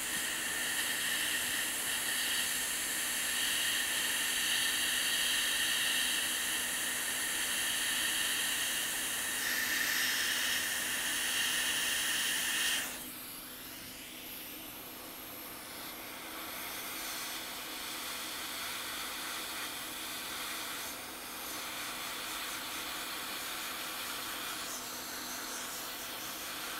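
Quick 861DW hot air rework station blowing a steady hiss of air while reflowing a chip onto the logic board. The hiss drops abruptly about 13 seconds in and carries on more softly.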